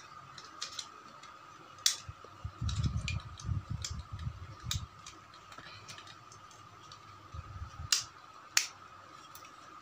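Plastic clicks and snaps as a hair clipper's circuit board and plastic housing are handled and fitted back together, with a few sharp snaps, the loudest two near the end, and soft rustling handling noise in between.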